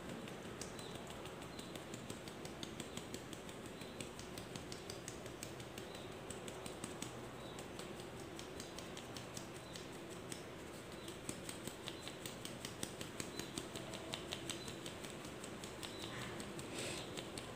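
Plastic flour sieve tapped again and again by hand to sift wheat flour into a bowl: a faint, steady run of soft taps.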